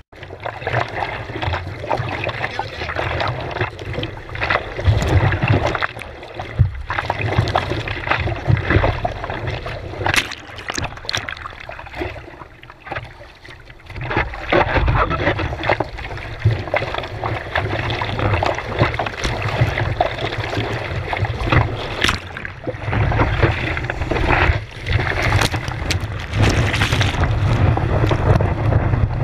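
Seawater sloshing and splashing around a surfboard-mounted action camera as the surfer paddles, with irregular sharp splashes. It goes quieter for a moment about twelve seconds in, then gets busier and louder near the end as the whitewater of a breaking wave reaches the board.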